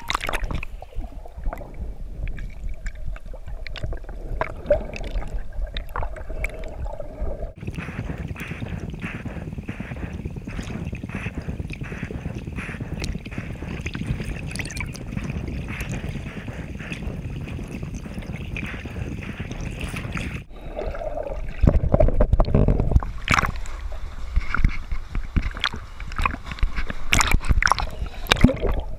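Seawater sloshing and gurgling around a snorkeler's waterproof action camera as it dips in and out of the water: muffled underwater churning, with splashes at the surface. The sound thickens about a quarter of the way in, drops out briefly about two-thirds through, then comes back as a louder low rumbling churn with sharp splashes.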